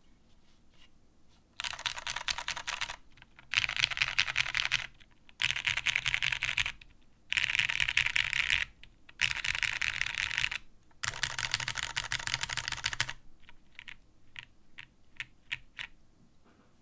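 Mechanical keyboard with lubed Cherry Hyperglide Brown tactile switches (TGR Jane V2 CE, FR4 half plate, O-ring mount), keys pressed in quick rolling sweeps across one row at a time. There are six sweeps of about a second each with short pauses between them, followed by a few scattered single key clicks near the end.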